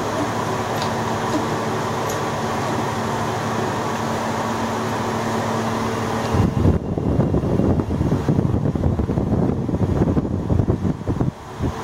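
A steady fan-like hum, then, from about six seconds in, an irregular rumbling with knocks as the handle of a 5-ton hydraulic bottle jack is pumped to raise a dumbbell cutting press.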